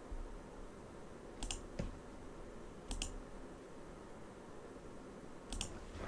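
Computer mouse clicking: a few short, sharp clicks, mostly in quick pairs, spaced out over several seconds, against faint room tone.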